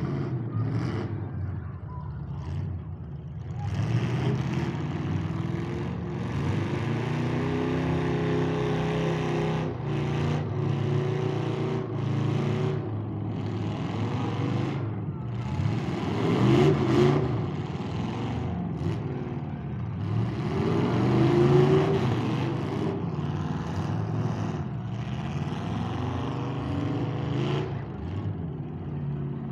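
Several demolition derby cars' engines running and revving up and down under load, with the loudest rising surges about halfway through and again about three-quarters through.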